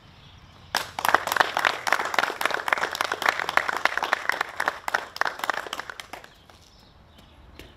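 A group of people applauding. The clapping starts sharply about a second in and dies away about six seconds in.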